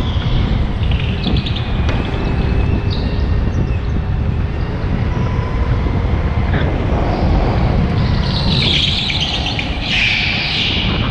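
Go-kart running at speed on an indoor track, heard from on board as a continuous low rumble with a faint steady motor tone. Near the end its tyres squeal on the smooth floor for a couple of seconds as it slides through a corner.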